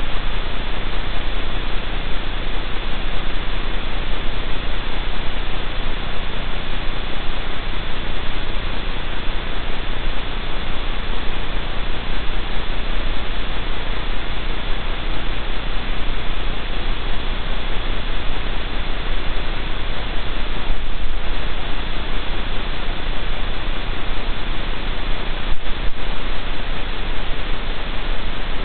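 Steady loud static hiss with a constant low mains hum and a faint high whine from the den camera's audio feed, with two faint ticks in the second half.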